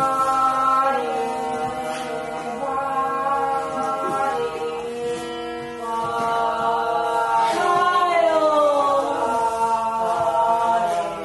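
Chanted singing: voices holding long, steady notes, with a slow downward glide about two-thirds of the way through.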